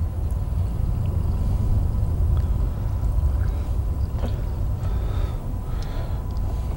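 Gasoline pouring and glugging from a plastic quart bottle into a lawn mower's fuel tank, faint against a steady low rumble.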